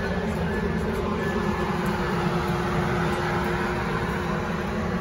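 Metrolink commuter train beside the platform: a steady mechanical rumble with a held hum.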